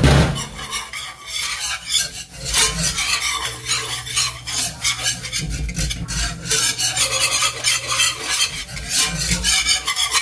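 Wire whisk scraping in quick, repeated strokes against a cast-iron skillet, working flour into melted butter to make a roux.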